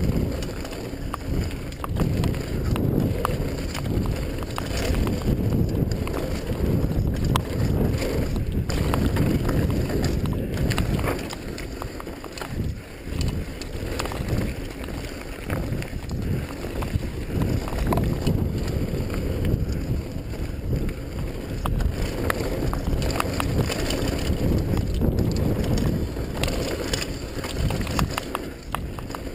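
Mountain bike riding fast down a dirt trail: a steady rush of wind over the microphone and tyres rolling on dirt and gravel, with frequent small knocks and rattles from the bike over bumps. It eases for a couple of seconds near the middle.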